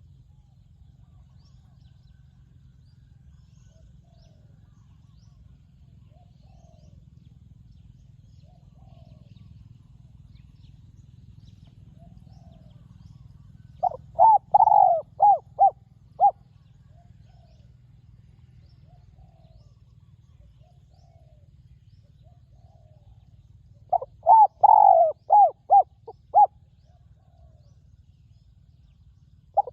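Spotted dove cooing: two loud phrases of several quick, ringing coos, about ten seconds apart, with faint short calls in between.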